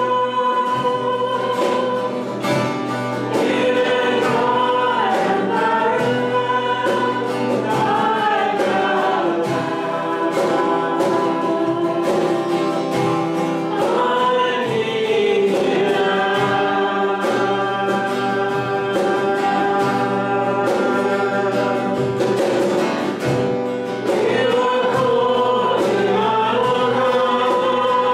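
A slow worship song sung by a group of voices with instrumental backing, the sung notes held long.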